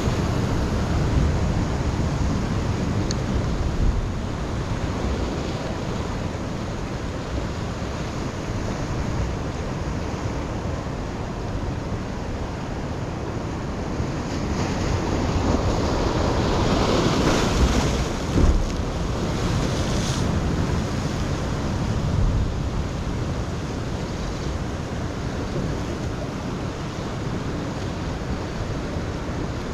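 Ocean surf washing against rocks, with wind buffeting the microphone. A wave swells louder a little over halfway through, with a short knock as it peaks.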